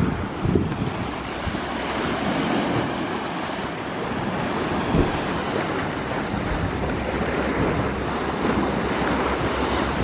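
Sea waves surging and splashing against a rocky limestone shore: a steady rush of surf with swells about half a second and five seconds in, and wind buffeting the microphone with a low rumble.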